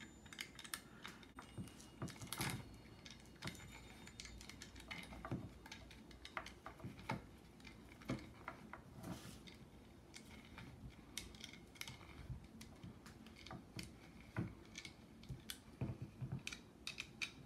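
Faint, irregular clicks and scrapes of a coin turning the slotted screw that holds the stock of a Crosman 102 air rifle, metal on metal, with the wooden stock shifting under the hand.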